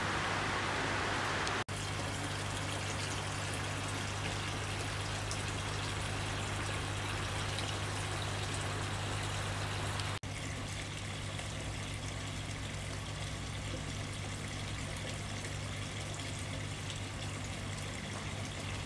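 Water trickling and pouring from bowl to bowl of a three-bowl cascading fountain, with a steady low hum underneath. The sound cuts out for an instant twice, about two and ten seconds in.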